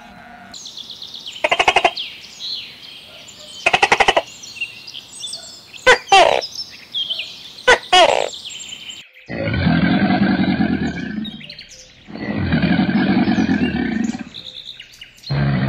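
Birds chirping: two rapid high trills, then two quick falling whistles. From about nine seconds in, three long, low, rough growls of a few seconds each from a crocodile.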